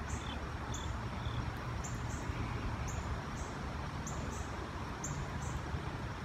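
Insects chirping in short, high pulses about twice a second, over a steady low background rumble.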